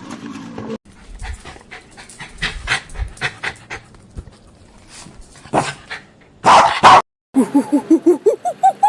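A dog panting in quick, rapid breaths, then a couple of loud barks. Near the end it cuts to another animal's fast, repeated pitched calls.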